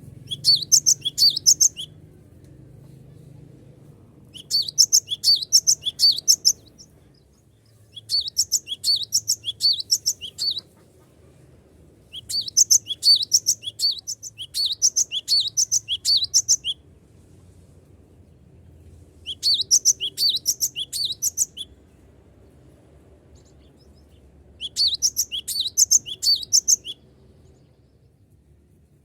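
Cinereous tit (gelatik batu) singing in bursts of rapid, high chattering notes, each burst lasting about two to four seconds, repeating six times with short pauses between. It is a lure-song recording of a bird in full song.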